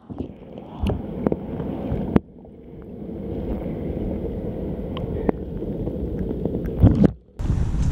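Muffled underwater rumble and sloshing of canal water heard through a submerged camera microphone, with a few sharp knocks and a louder surge near the end.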